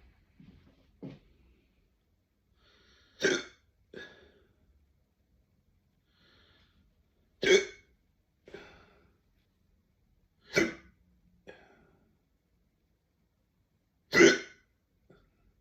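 A person hiccupping hard, four loud, sharp hiccups about three to four seconds apart, each followed by a fainter short sound.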